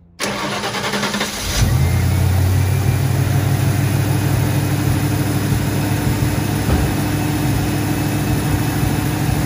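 Ford small-block V8 cranking on the starter to fill the freshly installed Edelbrock AVS2 carburetor with fuel, catching after about a second and a half and then running steadily at idle.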